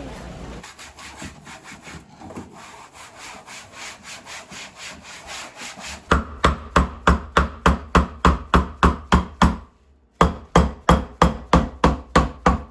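Knife chopping on a cutting board in steady strokes, about three a second. The strokes are fainter for the first six seconds, then loud, with a short pause near ten seconds before the chopping resumes.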